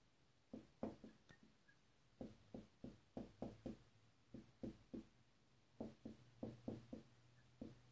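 Dry-erase marker writing on a whiteboard: a run of faint, short taps and scratches, one for each stroke of the pen.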